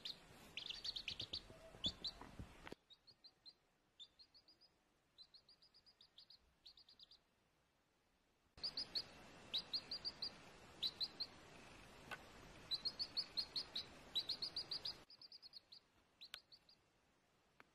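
Chicks peeping: runs of short, high cheeps, several a second, in quick groups.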